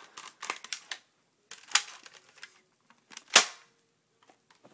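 A plastic toy shotgun that fires foam darts is handled and brought out. There are several sharp clacks and knocks, and the loudest is a single crack about three and a half seconds in.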